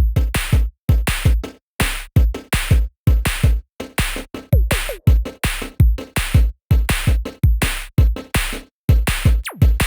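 Background electronic music built on a steady drum-machine beat of kick and snare strikes, with a few short gliding synth tones.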